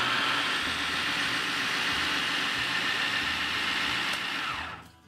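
Food processor motor running steadily, its blade churning shredded cheese and beer into a smooth beer cheese paste. It is switched off near the end and winds down.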